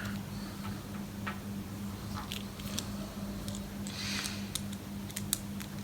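Scattered faint clicks and light taps of small screws being handled and fitted back into a soundbar's plastic casing, with a steady low hum underneath.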